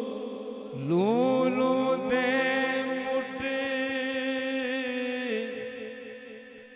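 A male naat singer holds a long wordless vocal note. The note slides up in pitch about a second in, is held with a slight vibrato, and fades away near the end.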